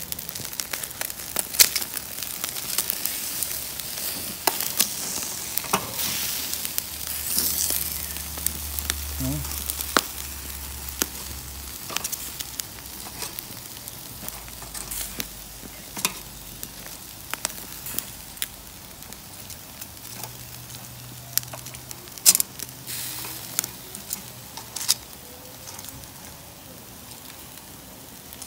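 Pork head pieces sizzling and spitting on a charcoal grill over open flames, with sharp pops and clicks scattered throughout.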